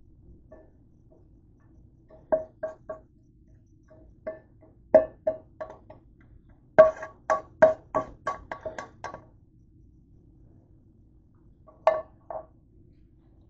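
A utensil tapping against a frying pan as fried onions are knocked out of it onto a plate: groups of sharp taps, each with a short ringing note. There are a few taps early on, a busier run of about eight taps around the middle, and three more near the end, over a faint steady hum.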